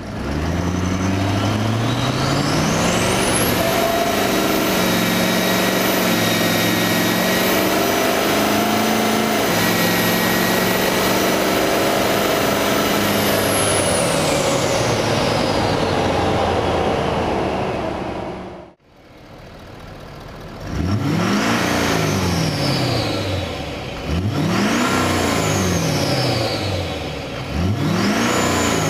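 Ford 6.7L Power Stroke V8 turbodiesel with an H&S single-turbo kit and a 5-inch exhaust with muffler, accelerating at full throttle. The engine pulls hard, and a high turbo whistle climbs within the first few seconds, holds, then falls away as the throttle comes off. After a short break the engine is revved three times in neutral, each rev rising and falling with the turbo whine following it.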